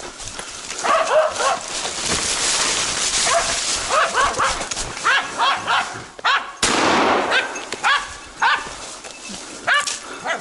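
Kai Ken and Shikoku hunting dogs barking repeatedly in short, sharp barks, baying at a wild boar. A burst of rustling through the undergrowth comes about two-thirds of the way in.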